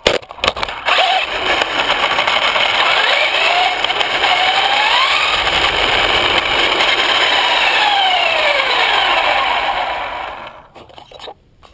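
Traxxas Slash VXL's Velineon brushless motor and drivetrain whining hard over a loud rushing noise, its pitch sliding up and down, while the truck lies upside down. It opens with a few sharp knocks as the truck flips, and the noise dies away near the end.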